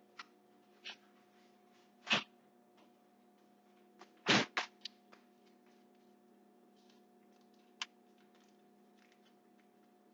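A few short clicks and knocks from handling things at the kitchen counter while a pat of butter is unwrapped, the loudest a quick cluster of knocks about four seconds in. A faint steady hum runs underneath.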